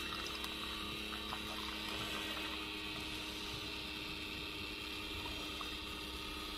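Single-cup coffee maker brewing, its pump giving a steady hum with a faint hiss. The owner says it needs descaling and is struggling.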